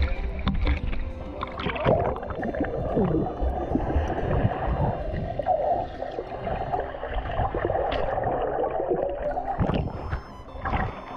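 Water sloshing and splashing in irregular bursts, with a low rumble underneath.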